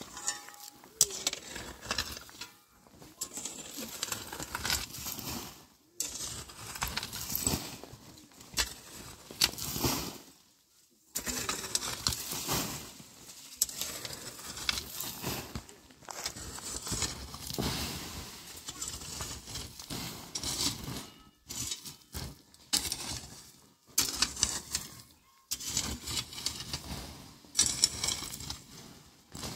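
Metal rake scraping and dragging through loose stony soil in irregular strokes, with gravel rattling and short pauses between strokes.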